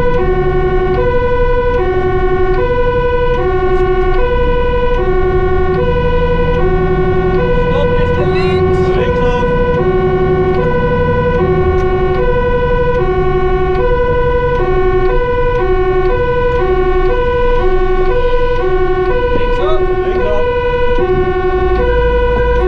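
Fire truck's two-tone siren, alternating evenly between a low and a high note, heard from inside the cab over the low drone of the truck's engine.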